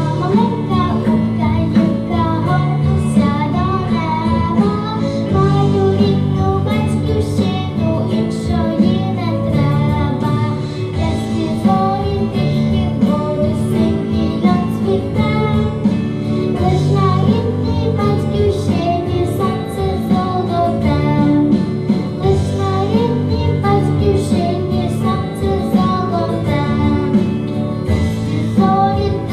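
A young girl singing a Ukrainian song solo over a backing track with a steady beat.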